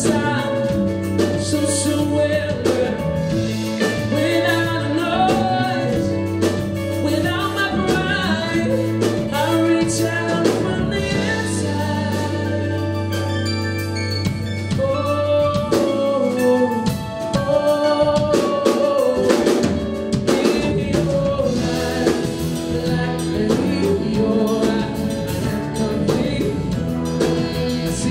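Live music: a man singing into a microphone while playing a steel-string Taylor acoustic guitar, with low held bass notes under much of it.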